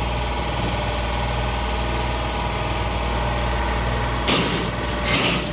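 Plasma-cutting shop equipment running with a steady mechanical hum, and two brief rushing noises about four and five seconds in.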